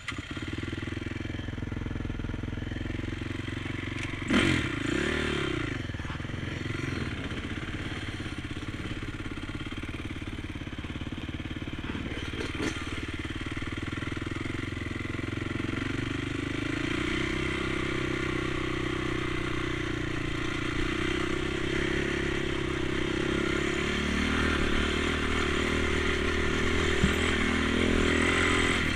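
Honda TRX450 quad's single-cylinder four-stroke engine running as it rides along a gravel trail. It revs up briefly about four seconds in, then climbs in pitch and loudness from about sixteen seconds as it picks up speed, with a knock or two from the machine over the bumps.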